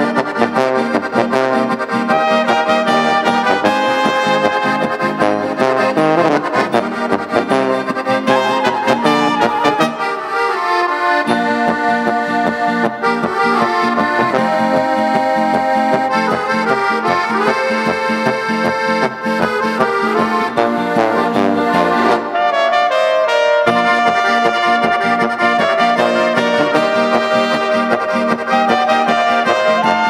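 German brass band music in an oompah style, with accordion, trumpets and trombone playing a lively tune. The bass drops out briefly twice, about ten seconds in and again about twenty-two seconds in.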